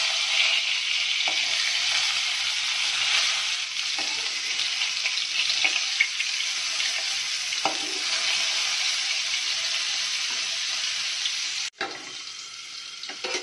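Whole stuffed bitter gourds shallow-frying in oil in an aluminium kadai: a steady sizzle, with a few light knocks and scrapes of a metal spatula turning them. Near the end the sizzle drops suddenly to a quieter hiss as a lid goes on the pan.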